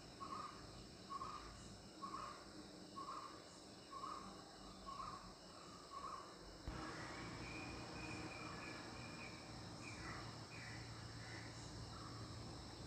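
Faint insect chirping, short even chirps nearly two a second, which breaks off abruptly about seven seconds in. A different faint background with a few higher chirps follows.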